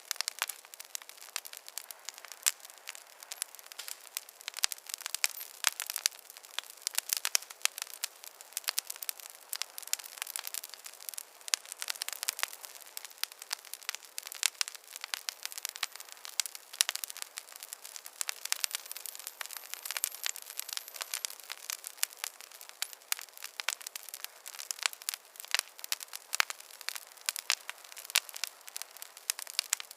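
Wood fire crackling, with many small irregular pops and snaps over a soft hiss and no deep sound beneath it.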